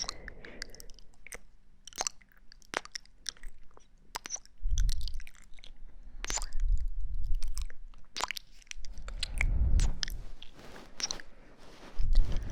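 Close-miked ASMR trigger sounds: scattered crisp, wet-sounding clicks and crackles, with a few louder low rumbles about five, seven and ten seconds in.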